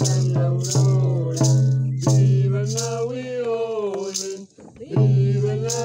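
A man chanting a sung ceremonial melody on long held notes, over a hide frame drum struck with a beater in a steady beat of about one stroke every 0.7 seconds, with a rattle shaking on the beat. The chant breaks off briefly about four and a half seconds in, then starts again.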